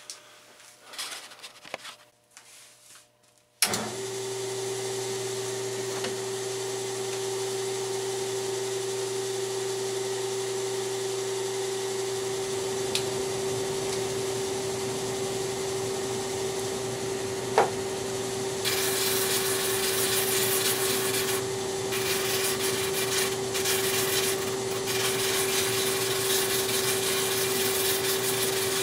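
Shop vacuum and drum sander switching on about four seconds in and running steadily with a constant whine. From a little past the middle, a wooden piece pressed against the spinning sanding drum adds a louder, uneven rasp.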